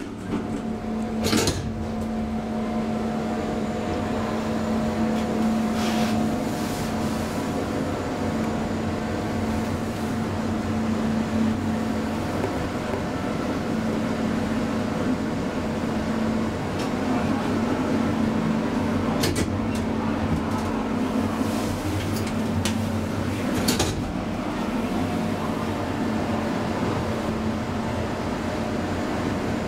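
KONE traction elevator, a steady mechanical hum inside the car with a few sharp clicks scattered through it.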